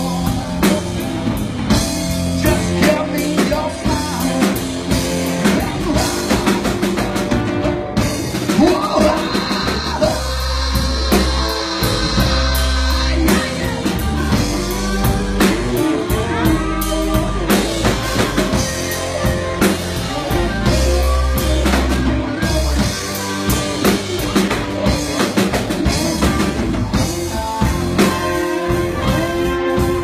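Live blues-rock band playing: electric guitars over a drum kit, with a heavy low end and steady drum beats.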